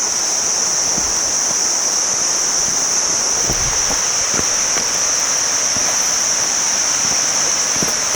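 Steady rushing of Kuang Si waterfall, with a continuous high-pitched drone of jungle insects over it.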